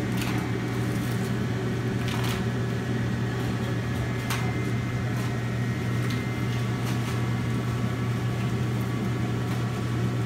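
Gas burner under a copper candy kettle running with a steady low hum, with a few light knocks in the room.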